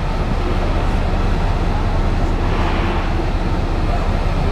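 Steady low rumble aboard a river cruise ship sitting in a lock chamber, with a short hiss swelling about two and a half seconds in.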